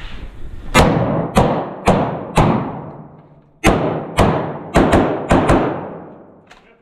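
Galil ACE rifle in 7.62x39 firing: four shots about half a second apart, then after a pause a quicker string of five or six, some as close pairs. Each shot rings on with a long echo off the shoot-house walls.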